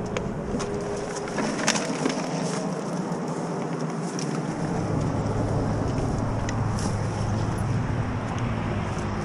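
Engine noise: a steady low motor hum comes in about halfway and holds. Scattered clicks and rustling run over a noisy outdoor background.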